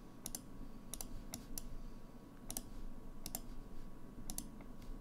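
Computer mouse clicking: about ten short, sharp clicks at irregular intervals, some in quick pairs, over a faint steady hum.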